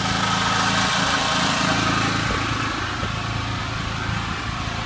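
Portable generator's small engine running steadily under load, giving an even hum.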